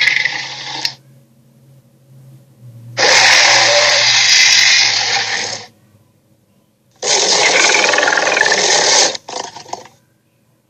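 Fantasy creature sound effects: two long, harsh, hissing calls, each about two to three seconds, the second followed by a short crackle.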